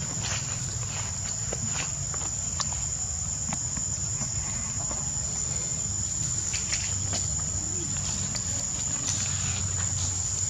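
Steady high-pitched drone of insects, with scattered soft rustles and clicks over a low rumble.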